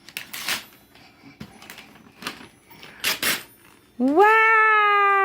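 Wrapping paper rustling and tearing in a few short bursts, then about four seconds in a child's long, drawn-out "woooow" that rises and then slowly falls.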